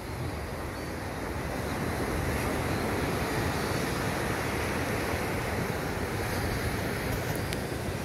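Sea surf washing steadily onto a rocky shore, with wind buffeting the microphone.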